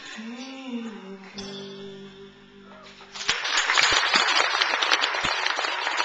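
Guitar backing music ends on a long held note that bends slightly and fades. About three seconds in, an audience starts applauding loudly and keeps on.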